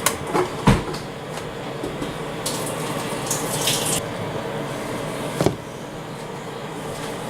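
Water running into a container to mix a drink, with a hissing stretch about two and a half to four seconds in. Sharp knocks of the container being handled come near the start, and one more about five and a half seconds in.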